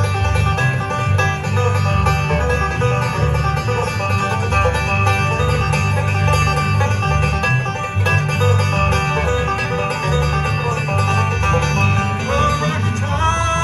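Bluegrass band playing live: banjo picking over strummed acoustic guitars, with an upright bass playing a steady low line.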